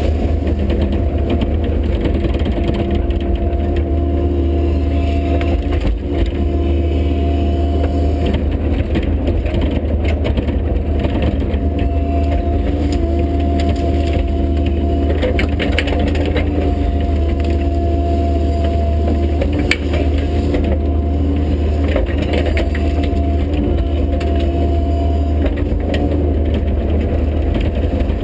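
Bobcat E50 mini excavator's diesel engine running steadily as the machine tracks and works, with a few sharp cracks about halfway through.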